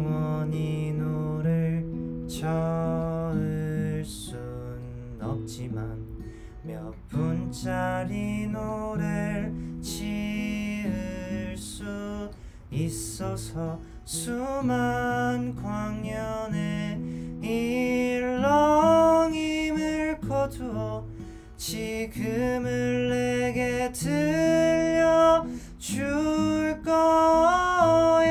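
A man singing with his own steel-string acoustic guitar, a Crafter with a capo on the neck, playing chords underneath the voice.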